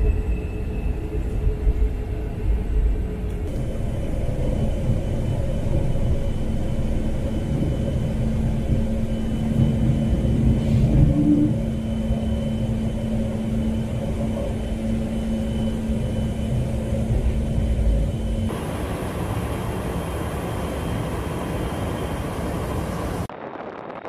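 KC-135 Stratotanker's F108 turbofan engines heard from inside the cabin: a loud, steady rumble with a droning hum. The sound changes abruptly a few times where clips are joined, and near the end it drops to a quieter jet sound.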